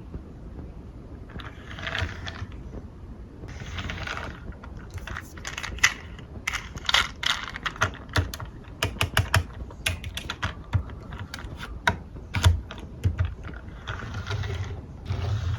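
Marbles rolling down a wooden marble run: stretches of rolling rattle, and in the middle a quick series of sharp clicks and clacks as the marbles strike the track pieces and each other.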